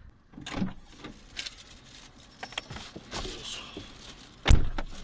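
Someone getting into a parked Daihatsu Hijet Cargo kei van, heard from inside the cabin: a string of knocks and rustles, then a door shut with a heavy thump about four and a half seconds in.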